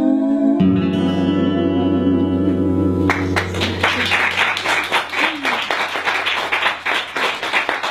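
Women's voices and an acoustic guitar hold the final chord of a Galician folk song, one voice wavering on it, then about three seconds in the music stops and an audience starts clapping.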